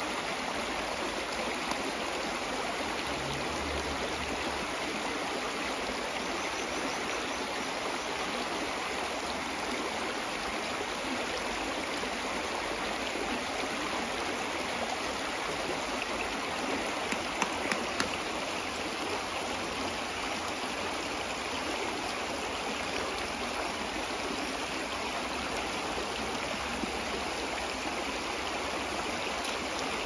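Shallow stream running over rocks: a steady rush of water, with a few small clicks a little past halfway.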